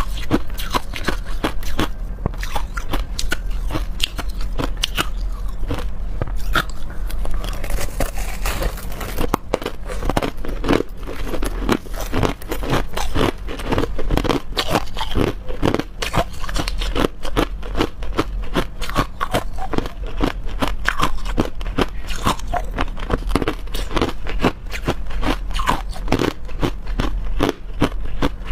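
Crushed ice crunching and crackling close up: a dense, unbroken run of sharp crackles.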